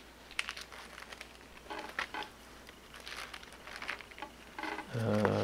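Stiff stamp album pages and thin translucent interleaving sheets rustling and crinkling as they are turned by hand, in scattered soft crackles. A short murmur of a man's voice comes near the end.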